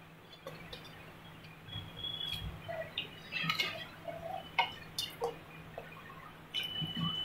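Raw potato sticks dropped one after another into a wok of hot water: scattered light plops and clicks over a low steady hum, with a few short high-pitched chirps in the background.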